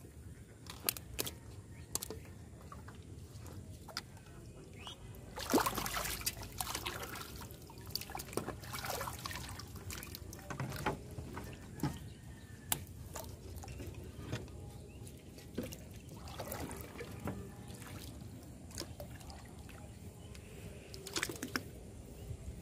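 Water splashing and dripping as a caught fish is lifted out of the water into a wooden boat, with scattered knocks of handling on the boat's planks; the loudest splash comes about six seconds in.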